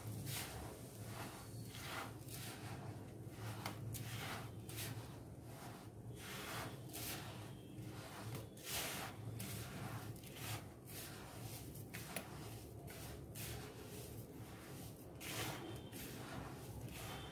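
Hands mixing and rubbing flour, semolina, sugar and ghee together in a plastic bowl: soft, repeated scrunching rustles about one or two a second, over a faint low hum.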